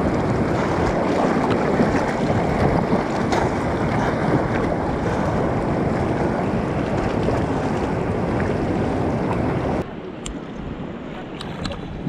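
Rushing water of the White Nile with wind buffeting the microphone. About ten seconds in it cuts off suddenly to quieter water with a few small ticks.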